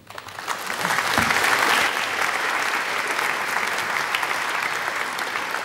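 Audience applauding: the clapping starts suddenly, swells within about a second, then slowly dies down.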